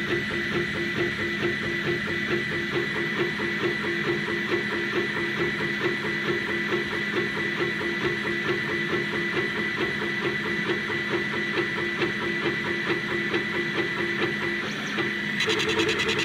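40 W CO2 laser engraver raster-engraving a wooden dowel on a rotary attachment: stepper motors whining steadily, with the head pulsing back and forth several times a second. Near the end the whine steps up in pitch and the pulses come faster.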